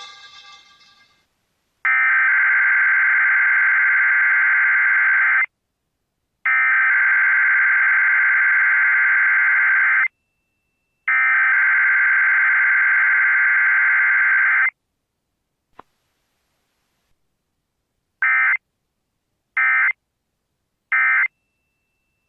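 Emergency Alert System SAME data bursts: three long, harsh digital bursts about a second apart, the header of an alert, then after a click and a pause, three short bursts, the end-of-message signal.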